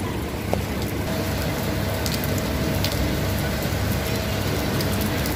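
Heavy rain falling steadily onto flooded paving and standing water: a dense, even hiss with scattered ticks of drops.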